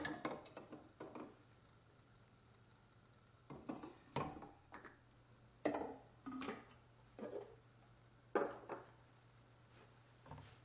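Plastic parts of a yogurt maker being fitted together by hand: light knocks and clicks in several short clusters as the inner bowl, the lidded container and the clear cover are set into the unit.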